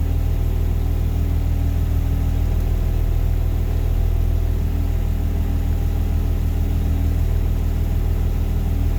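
Blue Bird bus engine idling steadily, a constant low hum with no change in speed.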